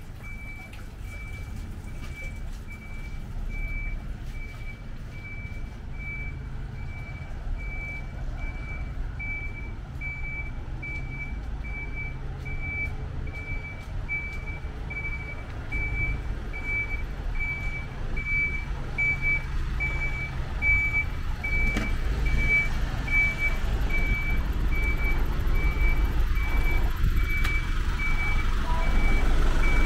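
A truck's reversing alarm beeping steadily in one high tone at an even rate, over the low rumble of its engine; both grow louder toward the end.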